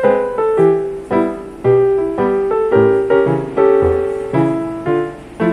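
Background piano music: a melody of single notes struck about twice a second, each dying away.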